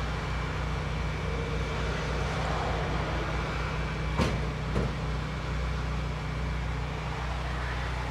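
Food truck's engine idling steadily beside highway traffic, with two short knocks a little past four seconds in as the flexing fold-down serving shelf on the truck's side is handled.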